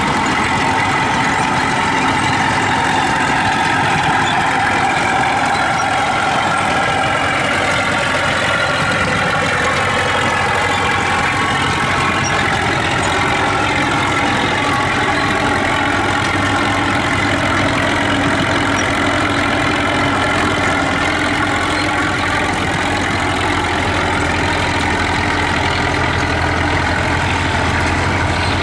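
Vintage crawler tractor's engine running steadily under load as it drags a weighted pulling sled at a slow crawl, its pitch sagging slightly around the middle and then recovering.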